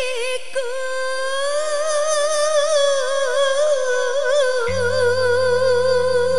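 A singer holding one long, ornamented note with a wavering pitch, over musical accompaniment; a steady low bass tone comes in about three-quarters of the way through.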